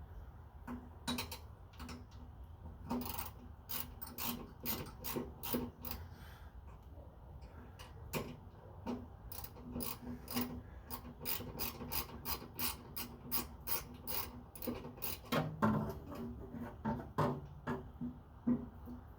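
A run of sharp clicks and light knocks, a few each second and irregular, from hand-tool work on parts, with a faint hum under it.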